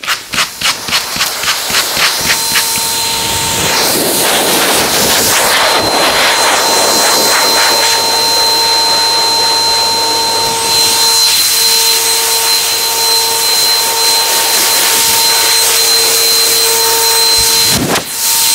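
A quick series of short strokes over the fleece, then an electric canister blower with a hose running steadily with a fixed high motor whine, blowing sand and loose dirt out of the wool of a tanned sheepskin. Near the end the blower's sound briefly dips.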